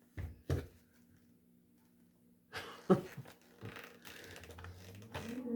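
Hands handling a power tool and its small parts: two sharp knocks, a pause, then a run of clicks and light clatter with one louder click about three seconds in.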